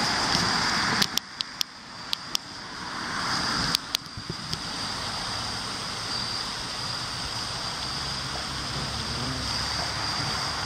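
Steady outdoor background noise with a continuous high whine, broken by a handful of sharp clicks and knocks between about one and four and a half seconds in, from the camera being handled and shifted at the eyepiece.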